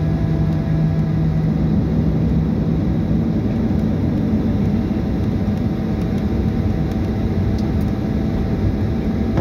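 Boeing 737-800 cabin noise on the ground after landing: the steady rumble and hum of its CFM56 jet engines and the airframe heard from inside the cabin. A low steady tone in the hum drops out about three and a half seconds in.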